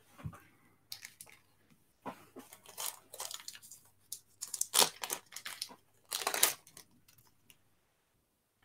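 Packaging rustling and crinkling as it is handled, in irregular bursts. The loudest come about five and six and a half seconds in.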